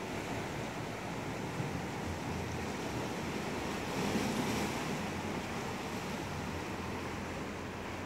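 Sea waves washing steadily against a rocky shore, with some wind on the microphone; the wash swells briefly about four seconds in.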